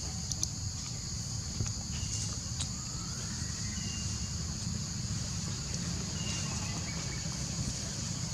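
Steady high-pitched drone of insects, with a low rumble underneath and a few faint short calls and clicks.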